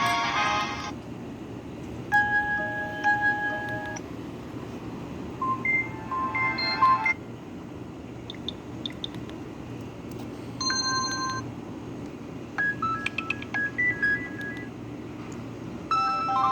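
Nokia 130 phone speaker playing short snippets of Nokia 3500 classic ringtones one after another: about six brief electronic tunes, each a second or two long, with short pauses between them. A steady low background noise runs underneath.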